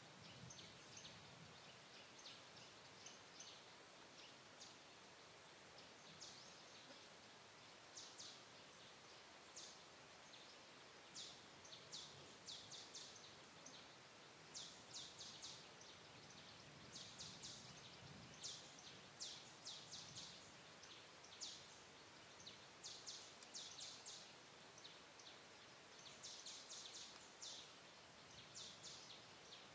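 Faint, high-pitched chirping in short rapid runs over a quiet outdoor background hiss, sparse at first and more frequent after about ten seconds.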